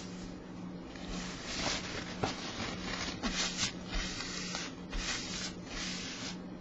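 Paper towel rubbed back and forth over a smooth mat, a run of brushing strokes about two a second, over a steady low hum.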